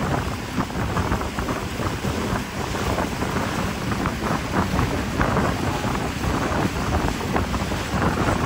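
Wind buffeting the microphone over the rush of water along the hull of a motorboat under way, a steady, gusting noise.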